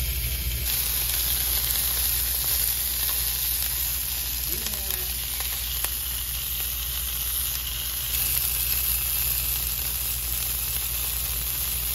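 Smoked turkey sausage frying in a pan, a steady sizzle.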